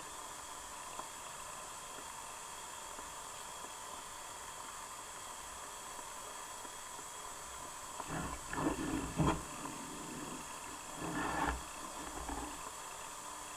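Steady underwater hiss with a faint steady whine, broken by two short bursts of muffled rumbling and knocks, about eight and eleven seconds in.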